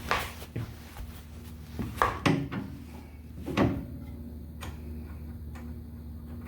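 Several knocks and clunks in the first few seconds, then a few light ticks, over a steady low hum.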